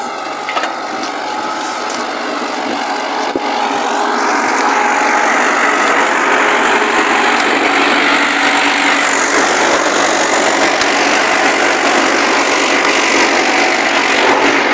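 Case JX110 tractor's diesel engine running steadily under load while pulling a five-furrow plough through the soil, growing louder over the first few seconds.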